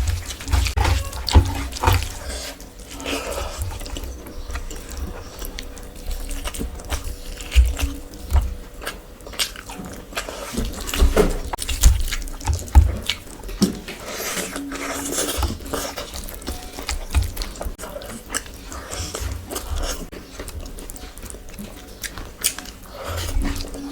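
Close-miked eating sounds: wet, sticky smacking and chewing of rice and curry, with many small clicks and soft knocks throughout.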